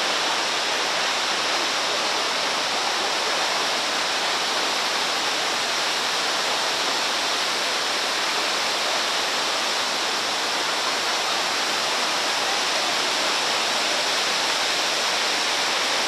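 Kegon Falls and the whitewater river in the gorge below it, a steady, unbroken rush of falling water.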